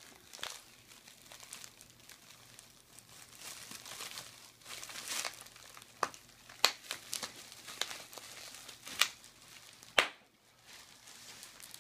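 Plastic bubble wrap crinkling as a small child's hands squeeze and twist it, with several sharp pops of bubbles bursting in the second half.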